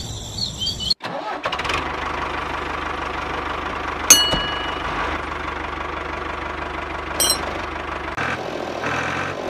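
Insect-like chirping for about the first second, then an engine running steadily with a regular low beat. A sharp click comes about four seconds in.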